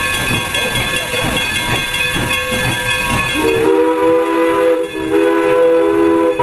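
Steam locomotive hissing and chuffing in a steady rhythm. About three and a half seconds in, its whistle starts, several notes sounding together as a chord, and breaks off briefly about a second later.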